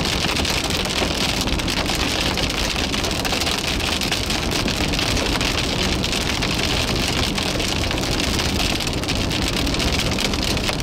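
Rain hitting a moving car, heard from inside: a dense, steady patter of drops on the roof and windshield over road and tyre noise.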